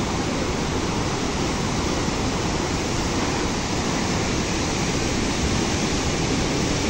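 Steady rush of a swollen river in full flood, fast muddy water churning past its banks.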